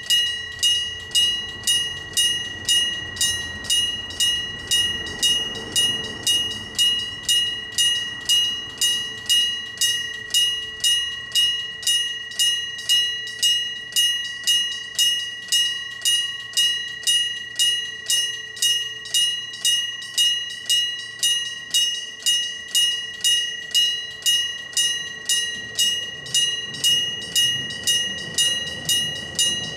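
Railway level-crossing electric bell, a hammer striking a gong over and over at a little under two strikes a second, each strike ringing on briefly: the crossing warning that a train is coming.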